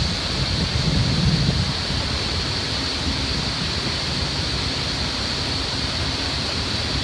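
Steady rumble and hiss of a train moving through a rail yard, swelling slightly about a second in.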